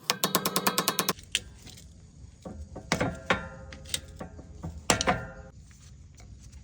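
Hand tools working on a steering ball joint: a burst of rapid ratcheting clicks, about ten a second, then five or six separate metallic knocks that ring briefly.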